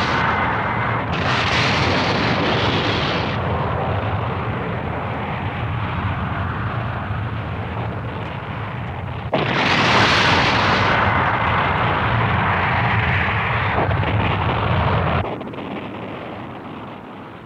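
Film sound effects of a space fortress blowing up: a continuous rumble of explosions, with a sudden fresh blast about nine seconds in that carries on for several seconds before dropping to a quieter, fading rumble near the end.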